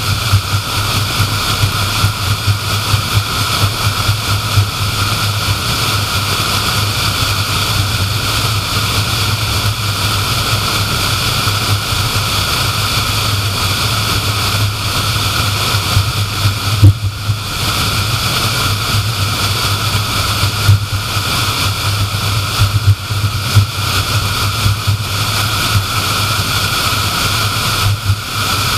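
Car driving at highway speed: a steady rush of tyre and road noise over a low engine drone, with a brief bump about halfway through.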